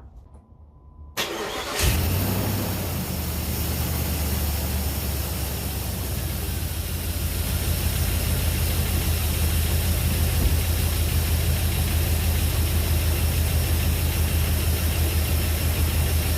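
Jeep Grand Cherokee engine, freshly rebuilt with new connecting rod bearings, cranked briefly by the starter about a second in and catching at once. It then idles steadily and is still a little rattly.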